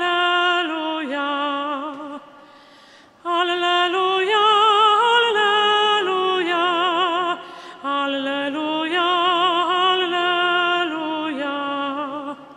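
A soprano singing long sustained phrases with a wide operatic vibrato. There are three phrases, with short breaks for breath after about two seconds and again near the middle.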